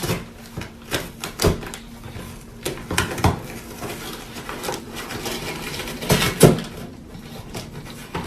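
A series of irregular clattering knocks and clicks, some sharp and close together, the loudest about six seconds in, over a faint steady hum.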